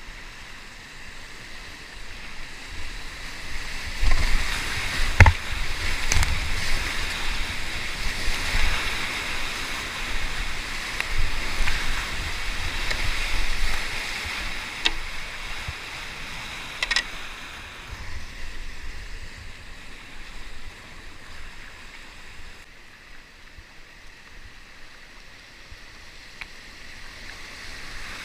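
Whitewater rapid rushing around a kayak, with paddle splashes and a few sharp knocks. It is loudest in the middle and fades to a softer wash near the end as the rapid gives way to flat water.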